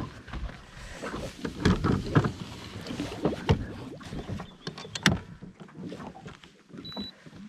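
Irregular knocks and clicks of handling aboard a small fishing boat, some ringing briefly, with a short high beep about seven seconds in.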